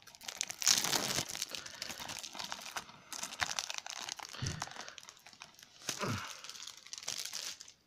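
Plastic shrink-wrap crinkling and tearing as it is peeled off a DVD case.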